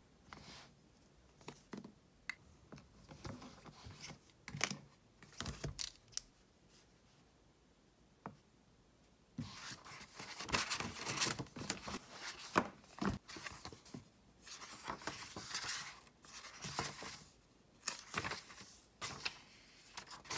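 Scattered light rustles and taps for the first few seconds, then, from about nine and a half seconds in, dense paper rustling as the pages of a paperback book are leafed through by hand.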